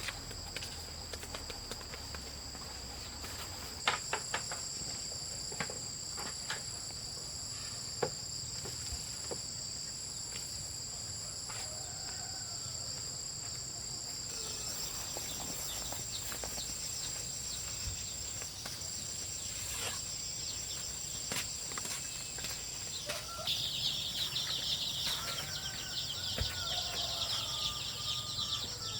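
Insects droning in steady high tones, with a denser, louder insect buzz coming in about three-quarters of the way through. Chickens cheep and cluck faintly among scattered light clicks.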